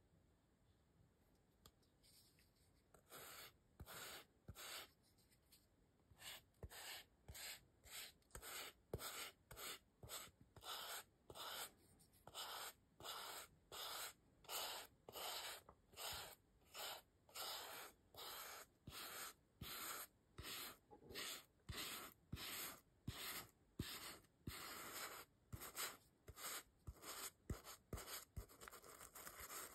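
Paintbrush stroking gold paint onto a styrofoam star: dry, scratchy strokes over the foam, about three every two seconds, starting about three seconds in.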